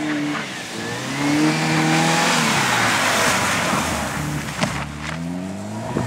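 A rally car's engine revving hard as the car accelerates along a snowy stage. Its pitch climbs, drops back and climbs again, as with a gear change, over tyre and road noise. A single short knock comes about two thirds of the way in.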